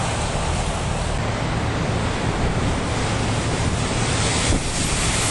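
Storm surf crashing against and spilling over a concrete seawall, a steady rushing roar with heavy wind buffeting the microphone. The noise grows hissier and a little louder about four seconds in.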